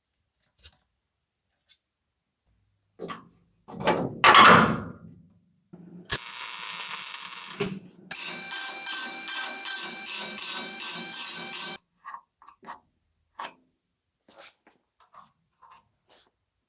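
Workshop metalworking tools: a short loud burst, then a steady hiss for about a second and a half. A machine follows, pulsing a little over twice a second for nearly four seconds, then light clicks and taps.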